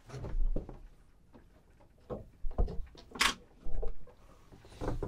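Anchor rope being handled and made off to a cleat at the bow of a small boat: scattered short knocks and rustles of rope against the boat's fittings, the sharpest a brief hiss about three seconds in.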